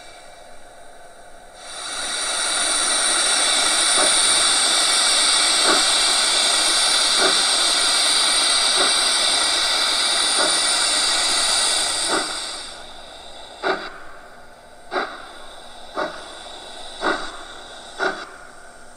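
Sound decoder of a Gauge 1 model class 52 steam locomotive playing the start-away. A loud hiss of open cylinder drain cocks lasts about ten seconds, with faint slow chuffs under it. Then the hiss cuts off and separate exhaust chuffs follow, about one a second, getting slightly quicker.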